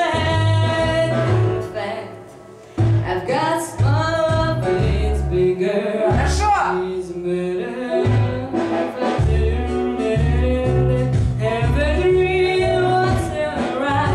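A woman singing a jazzy musical-theatre song over an instrumental backing track with a bass line. She uses filler syllables of the 'tra-la-la, pa-ra-ra' kind where scat phonetics are wanted, a habit her teacher is trying to root out. There is a brief dip about two seconds in and a quick upward vocal slide about six and a half seconds in.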